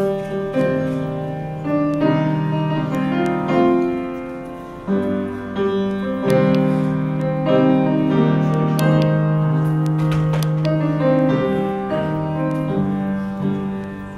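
Piano music: slow chords struck about once a second over a sustained low note.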